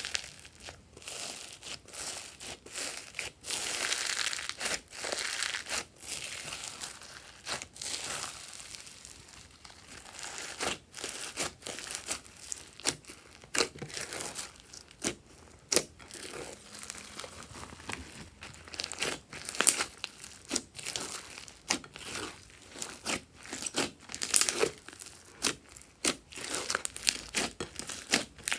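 Crunchy slime being squeezed and pressed by hand, giving an irregular run of crackles, crinkles and sharp pops.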